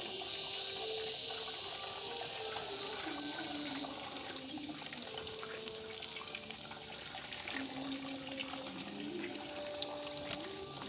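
Water running and splashing: a strong rush for about the first four seconds, then quieter. A faint background music melody plays under it.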